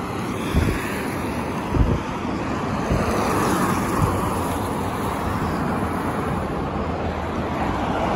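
Road traffic on a multi-lane highway: a steady rush of passing cars' tyres and engines, swelling about halfway through as vehicles go by, with wind on the microphone. Two short thumps, about half a second and two seconds in.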